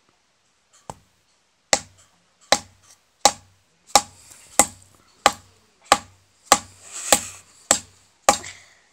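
A baguette used as a hammer, striking the head of a nail held upright on a wooden board: one light tap, then eleven sharp knocks at an even pace of about one every two-thirds of a second, driving the nail into the wood.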